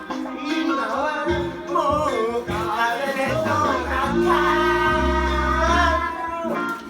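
A song: a voice singing over instrumental backing, holding one long note from about four seconds in until it breaks off shortly before the end.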